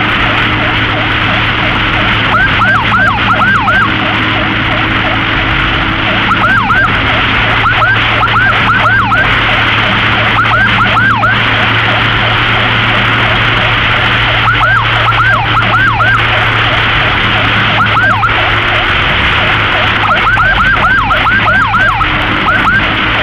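Emergency-vehicle siren sounding in short bursts of quick rising-and-falling whoops, several at a time, repeated every few seconds. Loud steady road and wind noise with a low engine hum runs underneath.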